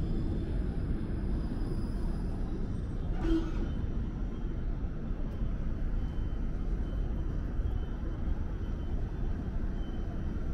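TTC Flexity Outlook streetcar passing on city street tracks, a steady low rumble mixed with street traffic noise. A short, sharper sound comes about three seconds in.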